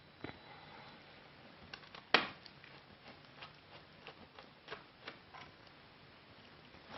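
Scattered small clicks and taps of laptop parts and screws being handled during disassembly, with one sharper knock about two seconds in.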